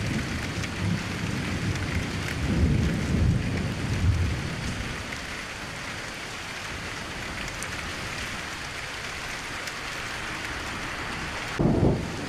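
Steady rain hiss with low rumbles in the first few seconds and a brief louder rumble near the end.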